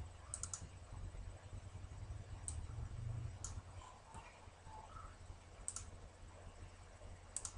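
Faint computer mouse clicks: about half a dozen sharp clicks scattered irregularly, some in quick pairs, over a low steady hum.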